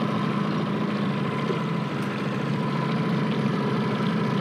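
Boat's outboard motor running steadily at trolling speed, an even hum.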